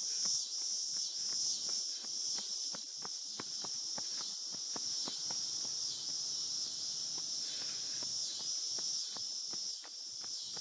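A steady, high-pitched chorus of insects pulsing in a regular rhythm, with footsteps on pavement ticking at about two to three steps a second.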